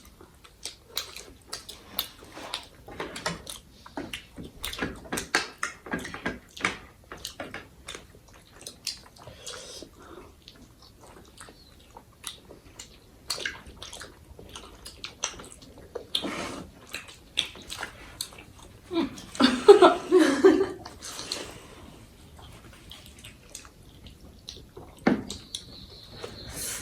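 Close-up eating sounds from spicy instant noodles and momos: wet chewing, slurping and many short smacking clicks of the mouth. There is a short burst of voice about twenty seconds in.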